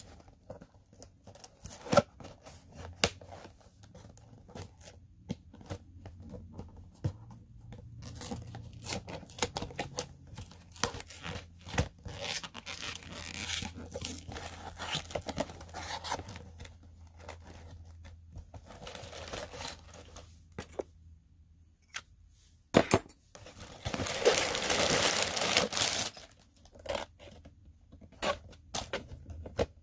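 Lego set packaging being opened by hand: tearing and crinkling with scattered clicks and rustles, and a longer, louder tear near the end.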